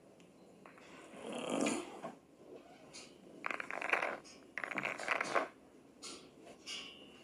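Pool balls rattling and knocking together as they are gathered and packed into the rack on the table, in several short bursts, the two loudest in the middle.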